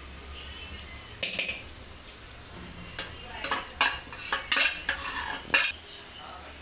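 Metal spoon clinking and scraping against a steel plate and an aluminium cooking pot as pickle is scooped into rice: one sharp clink about a second in, then a quick run of about eight clinks in the second half.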